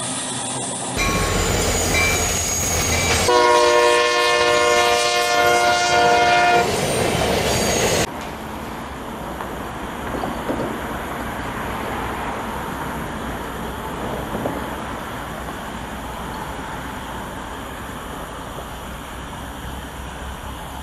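A train horn blows one long, steady multi-note chord for about three seconds over rail noise. After a sudden cut, a quieter, steady low rumble comes from a distant approaching train.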